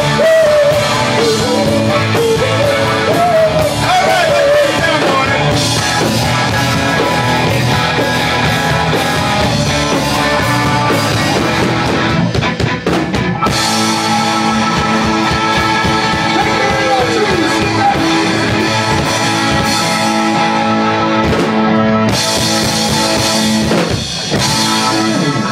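Live rock band playing with electric guitars, keyboard and drum kit; a singer's voice rides over the band in the first few seconds, then the playing goes on instrumental with sustained chords.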